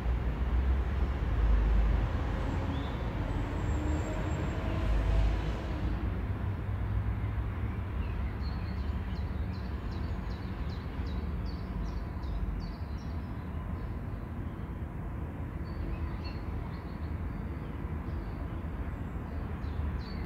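Breadcrumb-coated bread bars frying in hot oil in a pan: a steady sizzle, with light crackling pops through the second half.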